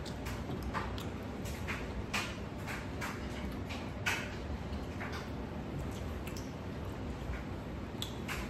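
Close-miked eating of a saucy seafood boil: irregular wet clicks and smacks of chewing and handling food, a few every second.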